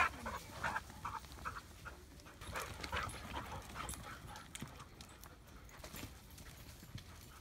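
A dog panting in quick, regular breaths, with a few light crackles from the forest floor.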